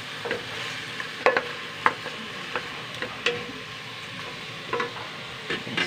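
Pork ribs sizzling in a metal pot with tomato and onion while a wooden spoon stirs them, knocking and scraping against the pot about once a second. This is the sauté stage that draws the juices out of the meat before water is added.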